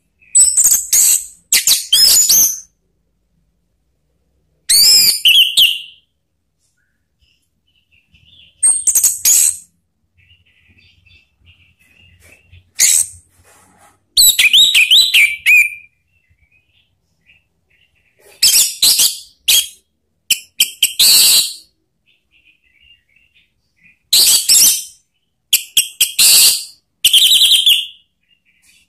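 Orange-headed thrush singing: short, loud phrases of quick, high whistled notes and twittering glides, one every few seconds with silent pauses between them.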